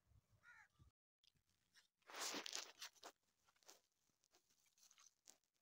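Mostly near silence, with a crunchy rustling noise lasting about a second, starting about two seconds in, and a short bird caw near the start.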